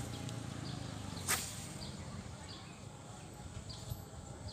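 A small bird chirping in short, evenly repeated calls over a low steady outdoor rumble, with one short, sharp noise about a second in that is the loudest thing heard.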